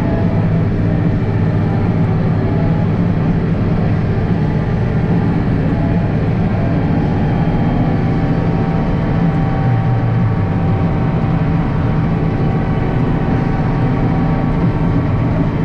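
International Harvester 1586 tractor's six-cylinder turbo diesel running steadily.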